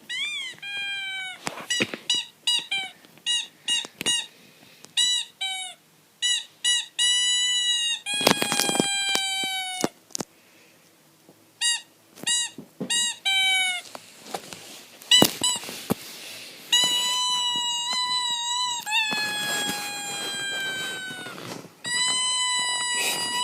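Fake squeaky-toy noises: a rapid run of short, high squeaks, then longer drawn-out squeaks whose pitch slowly falls. A few short scuffling bursts come between them.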